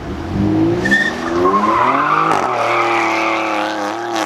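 BMW X3's turbocharged straight-six engine revving hard through quick upshifts, the pitch climbing in steps for about two seconds, then holding high revs. Tyres squeal as the SUV is thrown around.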